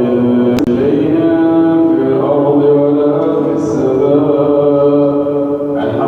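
A man's voice chanting Quranic recitation in the melodic tajweed style, with long drawn-out notes that glide slowly in pitch. A sharp click sounds about half a second in.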